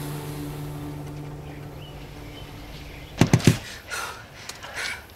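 Soundtrack music fading out, then three quick knocks on a car's side window glass.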